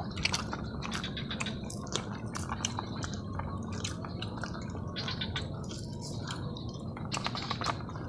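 Close-up eating sounds: an irregular run of wet clicks and smacks from people chewing and sucking skewered snail meat.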